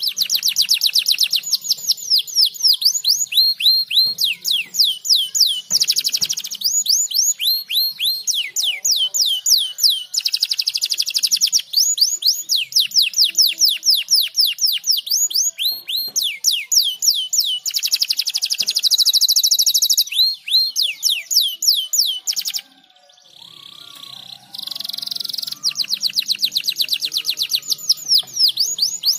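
Domestic canary singing, fast trills of rapidly repeated down-slurred notes strung into long song phrases. The song breaks off for about two seconds roughly three quarters of the way through, then starts again.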